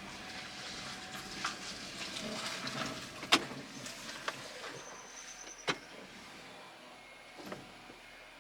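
Quiet in-cabin sound of a 2013 Honda Civic Hybrid moving off on a test drive with its CVT freshly reinstalled. Two sharp clicks come about three and a half and five and a half seconds in, with a brief high whine just before the second.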